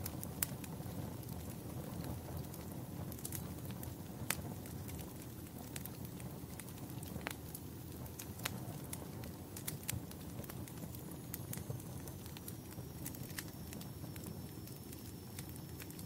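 Wood fire crackling in a fireplace: a steady low burning sound with irregular sharp pops and snaps.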